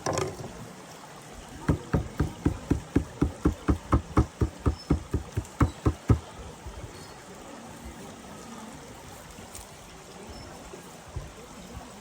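A quick, even run of about eighteen sharp knocks, roughly four a second, starting about two seconds in and stopping after about four and a half seconds, over a steady background hiss.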